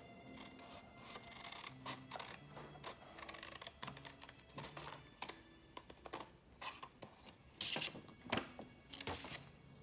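Hand scissors snipping through a sheet of paper in a run of short, irregular cuts, the paper rustling as it is turned, with louder snips near the end.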